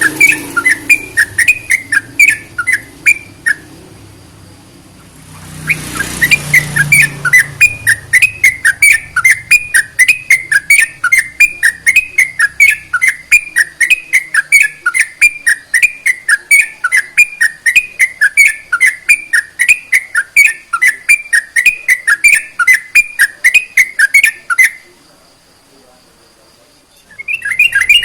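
Yellow-vented bulbul (trucukan) singing a fast run of repeated whistled notes, about three a second. The song breaks off twice, for about two seconds a few seconds in and again near the end, then picks up again.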